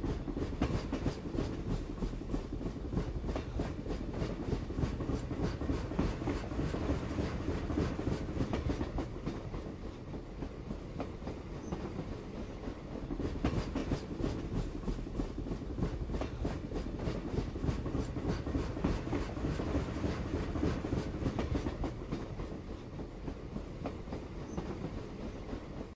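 Single-cylinder two-stroke engine of a 1918 Jelbart tractor running, chugging with a steady rapid beat.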